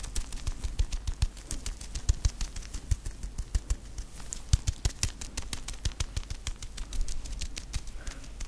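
White rubber gloves rubbed and worked together close to a microphone, giving a quick, irregular stream of crinkly clicks and squeaks with soft thumps underneath.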